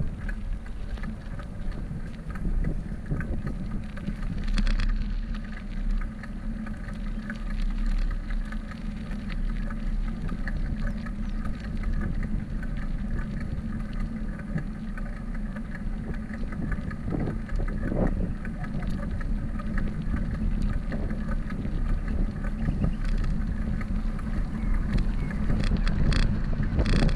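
Wind rumbling on the microphone of a camera on a moving bicycle, a steady low noise over the bicycle rolling on asphalt, with a few brief clicks about four and a half seconds in and near the end.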